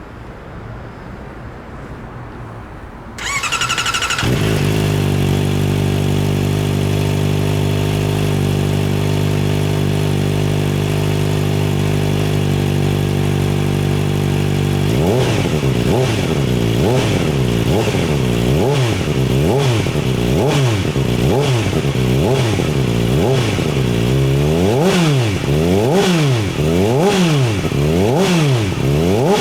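Kawasaki ZX-4R's 399 cc inline-four through a TRICK STAR IKAZUCHI titanium 4-into-1 full exhaust. It is cranked on the starter about three seconds in, catches and idles steadily, then from about halfway it is revved in repeated blips that rise and fall, coming quicker toward the end.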